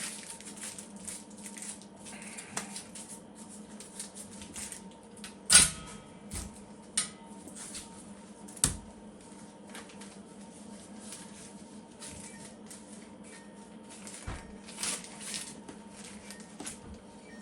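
Scattered clicks, taps and knocks of things being handled on a work surface, with two louder knocks about five and a half and nine seconds in, over a steady low hum.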